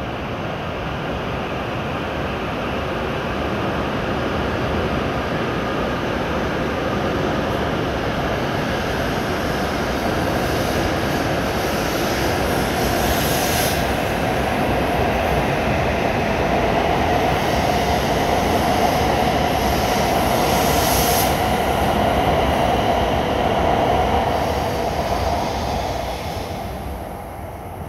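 W7 series Shinkansen train pulling out of the station and gathering speed past the platform, a steady rumble and hiss of the moving train that grows louder as it speeds up. It then fades away as the last car clears, a couple of seconds before the end.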